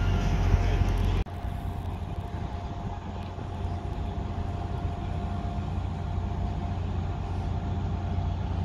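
Transport for Wales Class 175 diesel multiple unit drawing slowly into the platform, its engines making a steady low rumble. About a second in, a sudden cut replaces a louder rumble from beside another train.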